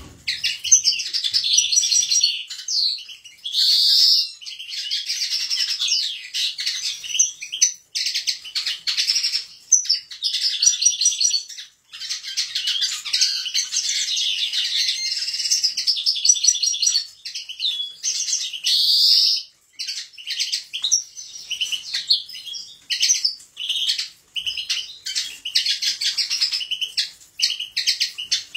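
European goldfinches singing: long runs of fast, twittering song, broken by short pauses about 8, 12 and 19 seconds in.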